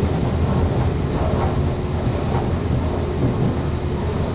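Train running at speed, heard from inside a carriage: a steady rumble of wheels on the rails with a faint steady hum over it.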